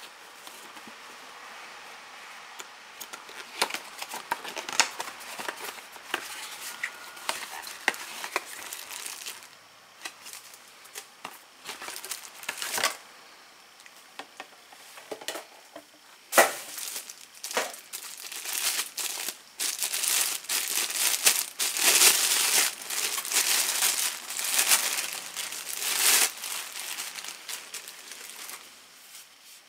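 Plastic wrapping and tissue paper crinkling as a new fuel filter is unwrapped by hand: scattered crackles at first, then a dense, louder run of crinkling in the second half.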